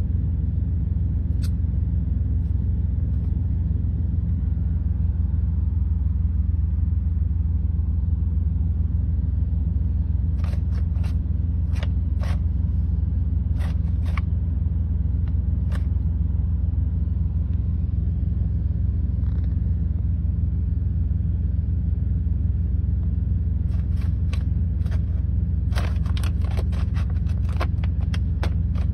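Steady low rumble of a semi-truck's idling diesel engine, heard from inside the sleeper cab. Short crinkles of a paper bag as the cat shifts in it come in a cluster about ten seconds in and again more densely near the end.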